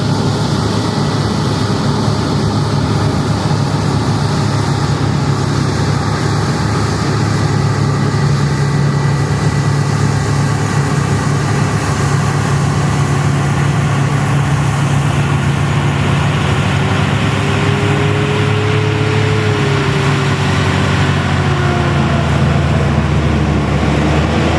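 Diesel engine of New Holland harvest machinery running steadily under load, with a deep, constant hum. A thin whine comes in about halfway through and dips in pitch near the end.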